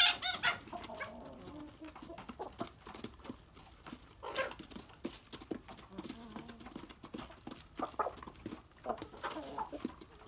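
Chickens feeding at a basin of grain, clucking and squawking, with sharp clicks of beaks pecking. The loudest call comes right at the start, another about four seconds in, and more calls near the end.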